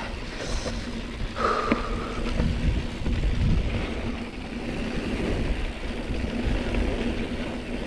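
Mountain bike riding down a dirt trail: wind rushing over the camera microphone over a steady low rumble from the tyres on the trail, with a faint low hum underneath.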